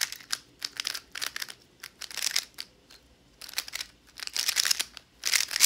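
Stickered Yuxin Little Magic M magnetic 3x3 speedcube being turned rapidly: fast runs of plastic layers clacking and snapping into place, with short pauses between runs.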